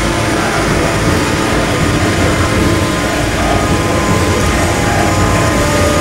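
John Deere 7500 self-propelled forage harvester chopping maize for silage, its engine and chopping gear running steadily under load, with a thin steady whine above the low rumble.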